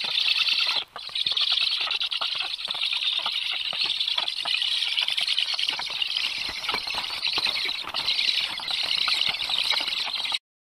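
Black stork nestlings giving a dense, continuous rasping chorus of food-begging calls, with wing flapping and scuffling on the nest as they are fed. The sound cuts off abruptly just before the end.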